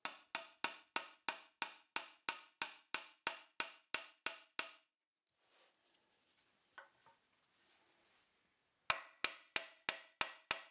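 Claw hammer tapping on a wooden camera frame: a steady run of about fifteen light blows, roughly three a second, each with a short ring. A pause with faint handling and one soft knock follows, then a quicker run of about seven taps near the end.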